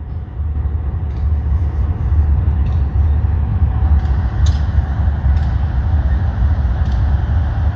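Two diesel locomotives approaching slowly, their engines a steady low rumble, with a few light clicks and knocks from the wheels on the rails.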